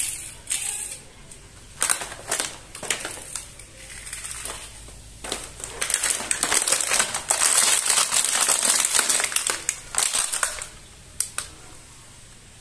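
Stiff clear plastic blister packaging being handled and crinkled: scattered crackles and snaps at first, then a dense run of loud crinkling from about halfway through, dying away near the end.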